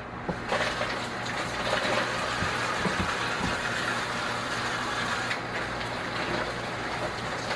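Water running steadily from a kitchen tap while hands are washed, an even rush that starts about half a second in.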